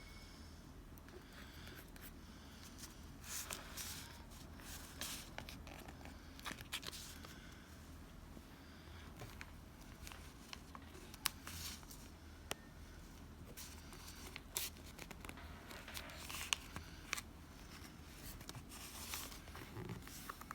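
Paper planner and sticker materials being handled close up: intermittent crisp rustling and short tearing sounds, with occasional light clicks and taps.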